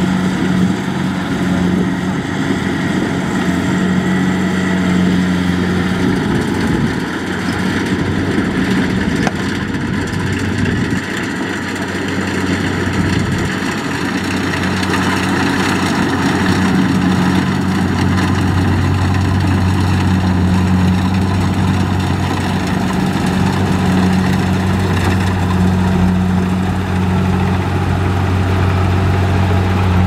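Kubota DC70 combine harvester working in a rice crop: its diesel engine runs steadily with a low hum under the dense rushing noise of the cutting and threshing machinery, growing a little louder about halfway through.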